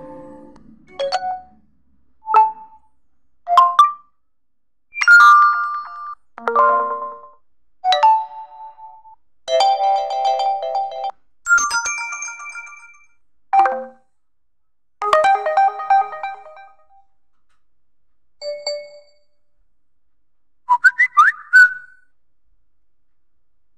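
Built-in ringtones of a realme C11 phone played through its speaker, a dozen or so short snippets one after another, each a few chiming or melodic notes at a different pitch, starting abruptly and stopping after a second or two.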